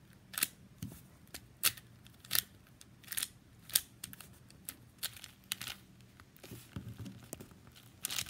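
A 4x4 Rubik's cube being turned through an algorithm: a run of sharp plastic clicks as the layers snap round, about one or two a second.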